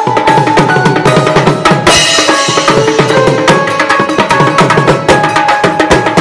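Fast, dense drumming on a set of stick-played tom drums, backed by a hand-played drum. A cymbal crash comes about two seconds in.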